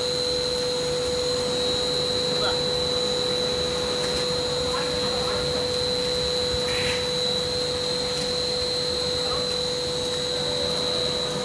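PVC blown-film machine running steadily: a constant blower-like whir with a held mid-pitched tone and a high whine, as the extruder and air ring keep the film bubble inflated.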